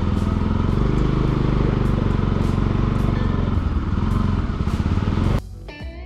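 Bajaj Pulsar NS200's single-cylinder engine running steadily while riding. It cuts off abruptly near the end, and guitar music takes over.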